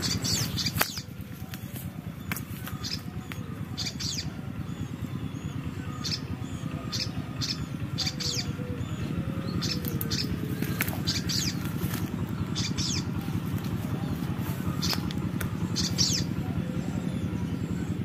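Short, high bird chirps repeated about once a second, over a steady low hum.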